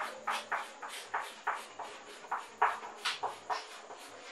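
Chalk writing block capitals on a chalkboard: a quick run of short scratching strokes, about three a second.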